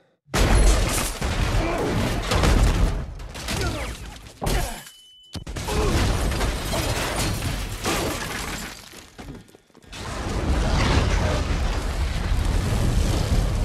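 Sound effects of the Deepwater Horizon drilling rig exploding: after a split second of silence, a loud blast with shattering, crashing debris and deep rumble. About five seconds in it drops out to a brief thin high ringing tone. It fades again near ten seconds, then the loud crashing and rumble of burning wreckage returns.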